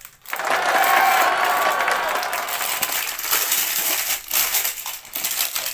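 Hard plastic toy pieces clattering and a clear plastic wrapper crinkling as the toys are handled.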